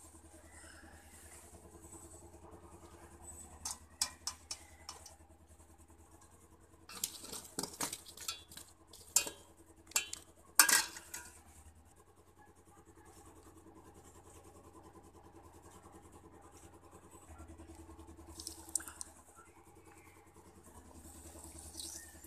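Metal kitchen utensils clinking: a steel skimmer, an iron kadhai and steel plates knocking together in a scattering of sharp clinks, thickest in the middle, with the loudest clink a little past halfway.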